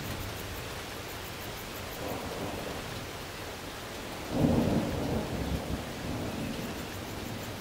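Steady rain falling, with a low rumble of thunder that starts abruptly a little past the middle and fades away over about two seconds.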